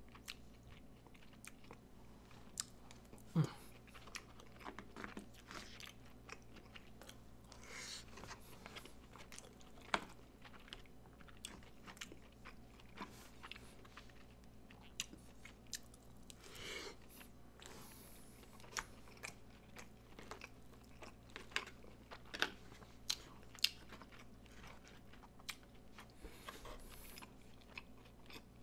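Close-miked mouth sounds of eating a loco moco of rice, hamburger patty and gravy: soft chewing with wet smacks and scattered clicks, a few louder. A steady low hum runs underneath.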